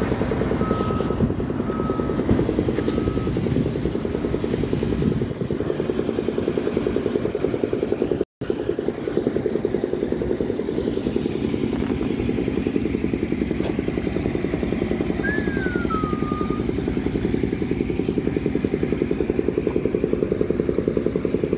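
An engine idling steadily with a low, rapid pulsing rumble, with a brief dropout about eight seconds in.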